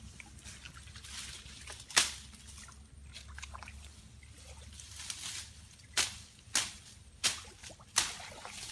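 Bare feet splashing and squelching through shallow muddy water. There is one sharp splash about two seconds in, then a run of four steps near the end.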